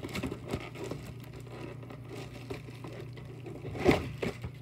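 Handling noise from a boxed action figure's plastic-windowed packaging: scattered taps and crinkles, then one loud knock about four seconds in as the box is brought close. A steady low hum lies underneath.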